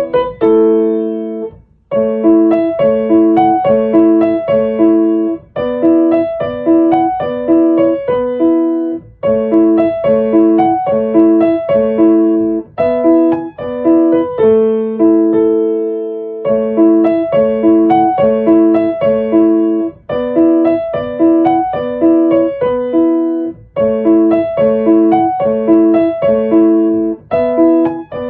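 Background music: a piano or keyboard tune playing repeating phrases of short notes, with brief pauses between phrases.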